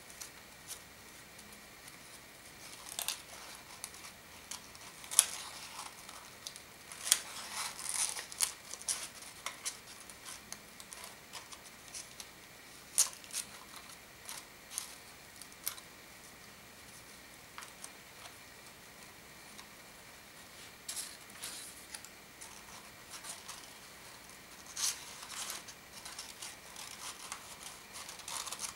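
Folded paper origami units being handled and slotted together into a modular kusudama ball: irregular crisp rustles, crinkles and small clicks of paper, with a busier stretch a few seconds in and another near the end.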